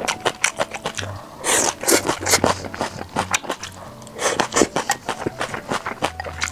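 Close-miked eating: wooden chopsticks scraping and clicking against a glass bowl of rice, then chewing a mouthful of rice and stir-fried water spinach, in many short clicks and crunches.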